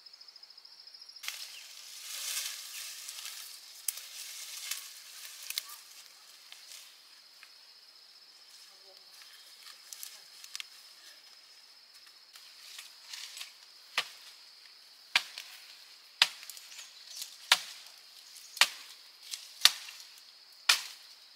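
Chopping with a blade: rustling and scattered knocks at first, then a run of seven sharp chopping strokes about a second apart in the second half. A steady high insect buzz runs underneath.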